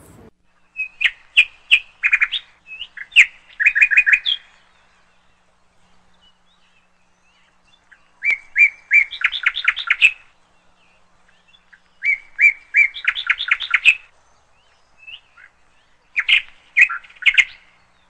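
Male zebra finch singing in four bouts, each a rapid string of short notes lasting about two seconds, with pauses of a few seconds between bouts.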